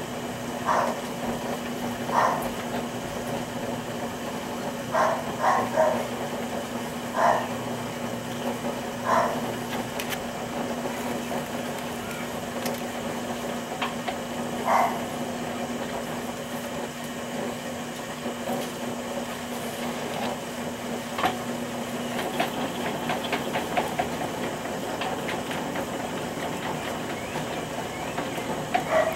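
Electric potter's wheel running with a steady motor hum while a tall vase is thrown, with a few short higher-pitched sounds in the first half. The hum drops out about two-thirds of the way through, followed by a patter of fast light clicks.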